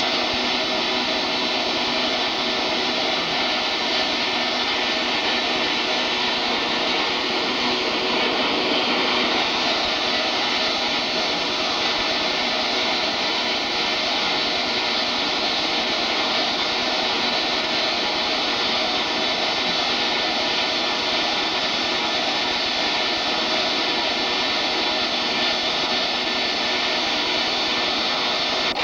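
Six-wheel ATV's engine running with a steady drone.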